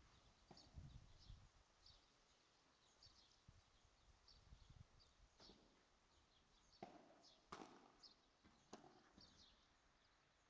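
Faint padel rally: a few sharp knocks of the ball off paddles and the court walls, bunched about a second apart in the second half, with lower thuds near the start. Short high chirps of small birds repeat throughout.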